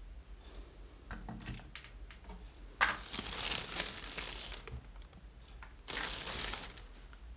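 Rosin flux sizzling as a hot soldering iron melts solder on a wire joint, in two hissing bursts: a sharp-starting one of about two seconds, then a shorter one about six seconds in. Small clicks of the wires being handled come before them.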